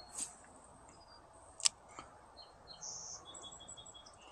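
Faint birds chirping, with a quick run of short high notes about three seconds in, and one sharp click about one and a half seconds in.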